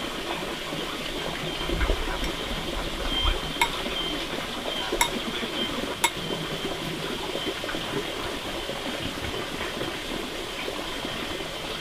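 Metal spoon clinking three times, about a second apart, against a ceramic bowl of cooked black beans as it scoops them, over a steady rush of running water.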